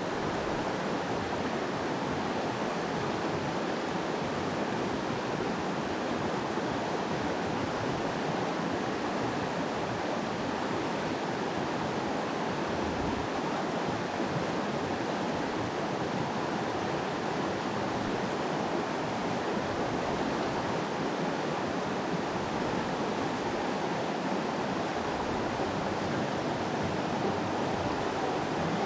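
Steady rushing of a mountain stream, an even wash of running water.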